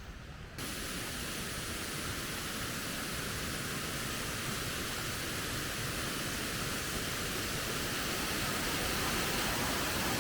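Waterfall rushing: a steady roar of falling water that comes in abruptly about half a second in and slowly grows louder.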